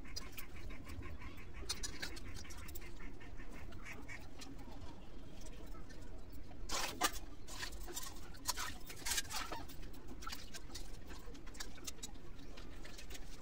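Hands rinsing cut pieces of hilsa fish in a steel bowl of water: sloshing and dripping with small clicks against the bowl, and a run of sharper splashes about halfway through.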